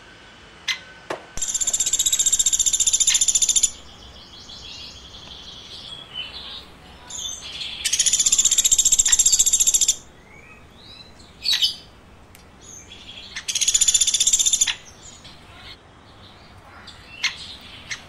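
Bird calls: three long, fast buzzy trills, high-pitched, each lasting one to two seconds, with short sharp chirps and clicks in between.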